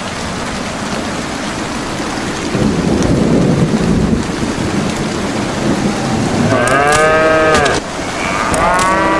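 Steady rain with a low rumble of thunder a few seconds in, then two long cow moos near the end, each rising and falling in pitch.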